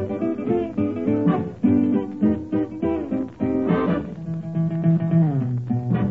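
Dance orchestra playing an instrumental number, with plucked guitar prominent. A falling run of notes ends on a low held note near the end.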